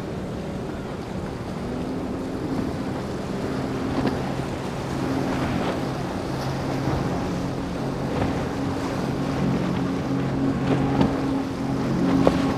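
Outboard-powered walkaround fishing boat running at speed, its engine a steady hum that grows louder as it comes closer. Under the engine there is hiss from the hull's spray and the waves.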